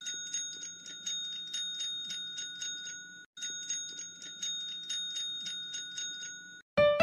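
Desk service bell struck rapidly and repeatedly by a cat's paw: quick dings about four a second, so its ring is kept going. It stops briefly a little past three seconds in, starts again, and cuts off shortly before the end.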